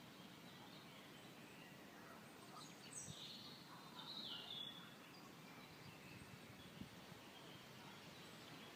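Near silence: faint outdoor ambience, with a few short bird calls about three to four and a half seconds in.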